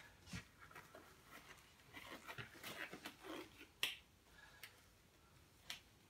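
Faint handling noise: a few sharp, light clicks, the sharpest about two-thirds of the way in, with light rustling between them.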